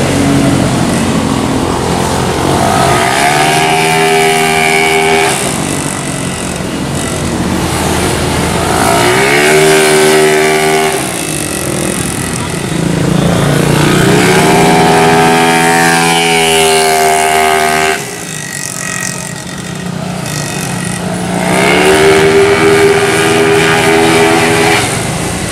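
Race-tuned automatic scooter engine revving hard as it accelerates along the track, its pitch climbing in about four separate pulls. The engine drops away suddenly once near the middle.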